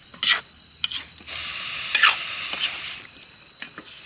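Hiss of a portable gas-canister stove that is leaking gas, with a few short, sharp bursts on top, the loudest about two seconds in.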